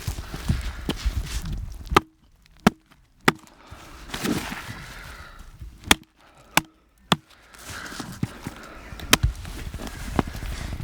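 Chopping with a blade: about eight sharp, single strikes at uneven intervals, with softer rustling between them.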